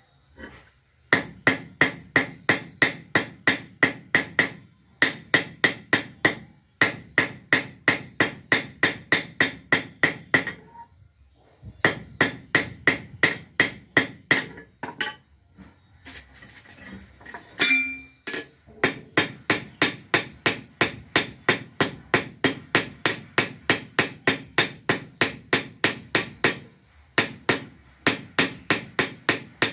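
Hammer striking a length of wire on a railway-rail anvil in fast, even blows, about four a second, each with a bright metallic ring. The hammering comes in runs broken by short pauses, with one louder ringing hit a little past the middle.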